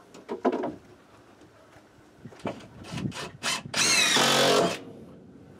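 Cordless drill driving a screw into the wooden shelf support, one run of about a second near the end, with a few short knocks and handling sounds before it.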